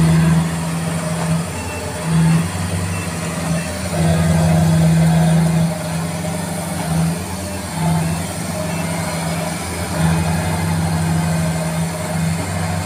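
Kubota DC-70 Plus combine harvester's diesel engine running under heavy load as the tracked machine churns through deep paddy mud, bogged down and working its way out. The engine note is steady and low, swelling louder several times as the load rises.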